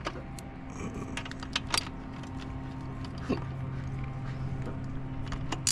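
Scattered light metallic clicks and taps of hand tools working on a motorcycle's rear wheel hardware, over a steady low hum.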